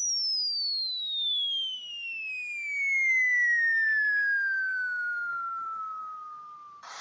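Sound effect from a phone sound-effects app: a single whistling tone gliding slowly and steadily down in pitch from very high to mid, with fainter higher tones falling alongside it. It is cut off by a short burst of noise near the end.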